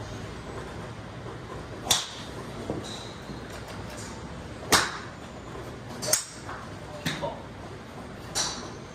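Sharp clicks of golf clubs striking balls off driving-range mats, about six strikes in all. The loudest, nearly five seconds in, is a 5-wood hitting the ball; the others are fainter strikes.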